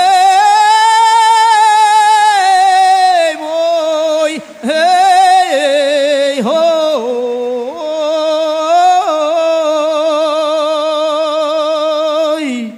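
Aboio, the vaqueiro's wordless cattle call: a man's voice singing long, drawn-out notes with heavy vibrato, unaccompanied, as the opening of a toada. The voice breaks off briefly about three and a half and four and a half seconds in.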